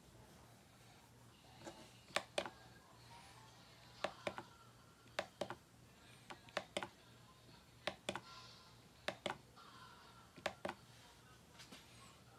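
Push buttons on a pocket digital scale being pressed over and over, each press a quick double click as the button goes down and comes back up, about seven presses in all.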